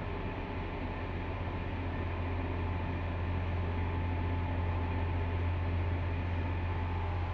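Steady low hum inside the passenger cabin of a stopped electric limited express train, with a faint steady whine over it.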